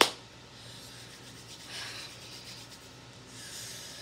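A single sharp hand clap, then palms rubbing together in two soft hissy swells.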